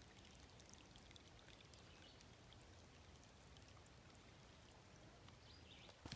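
Faint, steady trickle of a small woodland stream running over rocks and leaf litter, with many tiny ticks of water. A couple of louder knocks come right at the end.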